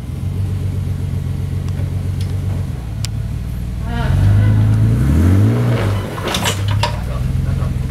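Pickup truck engine running at low revs as it crawls a rutted dirt trail, picking up revs from about four seconds in and then dropping back to a steady low note.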